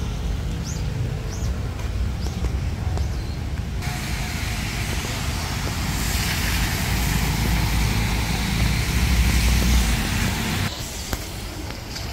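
Rainy street traffic: car tyres hissing on wet road, over a steady low wind rumble on the microphone. The hiss comes in abruptly about four seconds in, grows louder, and drops away sharply near the end.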